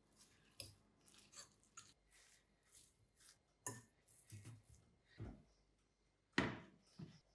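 Food-preparation handling sounds: a scatter of soft clicks, scrapes and light knocks, the loudest a knock about six seconds in.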